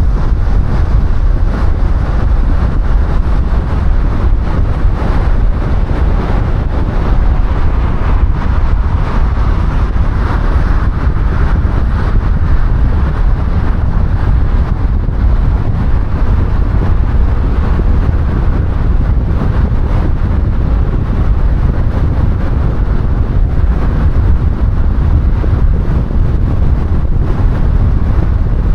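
Car driving: a loud, steady rumble of tyre and wind noise, heaviest in the low end, with wind buffeting the microphone.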